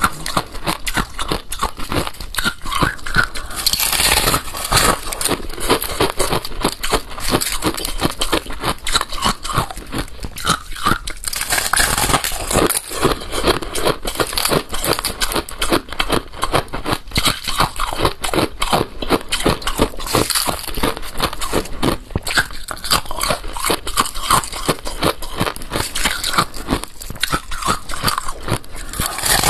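Close-miked crunching and chewing of balloon ice (ice frozen in a balloon), a dense, continuous run of sharp cracks and crackles as the ice is bitten and ground between the teeth.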